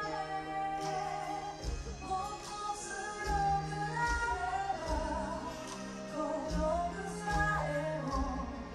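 A woman singing a pop song live over backing music with a held bass line. Low drum beats join about two seconds in and recur roughly every second and a half.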